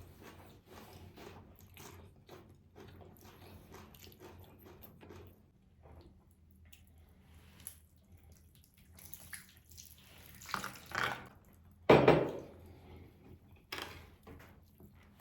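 Close-miked eating sounds of meatballs and rice being chewed: a run of small, quick mouth clicks, then a quieter stretch. Several louder smacks follow near the end, the loudest about twelve seconds in.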